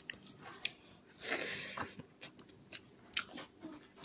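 Eating by hand: fingers squishing and mixing rice with chicken curry in a metal plate, with scattered small clicks and taps and a short rustling squish just after a second in, alongside some chewing.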